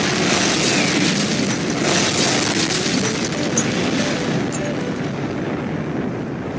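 Cartoon explosion sound effect: a sudden blast followed by a long, dense noise that holds for several seconds and fades only slightly.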